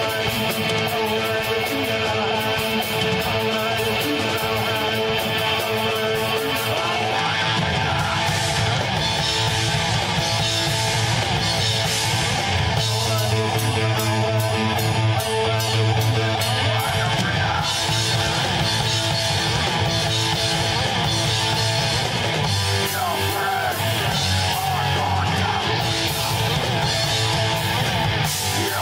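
A rock band playing live: electric guitar over bass and drums at a steady, loud level, the low end growing fuller about seven seconds in.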